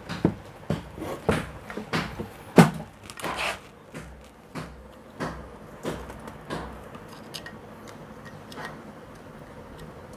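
Screwdriver tips clicking and scraping against a jet pump's mechanical seal seat and rusty motor end plate as the unevenly seated seal seat is pried loose to be reseated straight. A quick string of sharp taps and knocks, loudest about two and a half seconds in, thinning out to a few faint ticks in the last few seconds.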